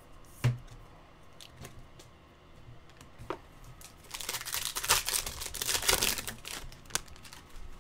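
Wrapper of a Topps Chrome trading-card pack being torn open and crinkled, a dense crackle lasting about two and a half seconds from about four seconds in. A single sharp knock comes about half a second in, with a few light ticks before the tearing.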